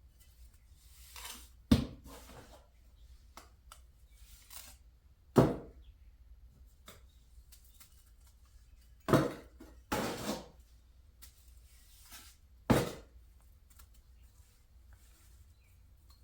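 Steel bricklaying trowel working mortar and bricks: four sharp knocks a few seconds apart, with scrapes of the trowel through the mortar between them.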